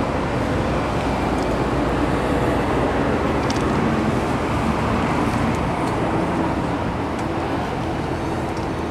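Steady low rumble and hiss of a running motor vehicle, with a few faint light ticks.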